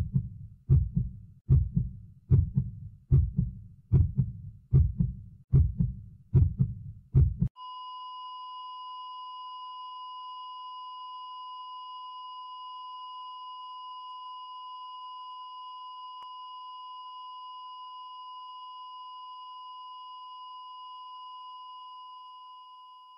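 Heartbeat sound effect beating steadily, a little faster than once a second, that stops abruptly about seven seconds in and gives way to a continuous high beep, the flatline tone of a heart monitor, which holds and fades out at the end.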